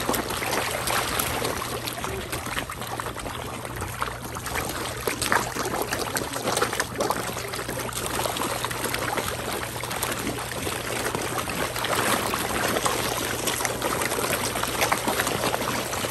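Water splashing and slurping as a dense crowd of big fish jostles and gulps at the surface in a feeding frenzy, a continuous patter of many small splashes.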